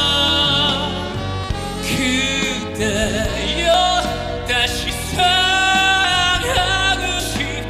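Korean ballad music playing: a lead melody with long, wavering held notes over a full accompaniment.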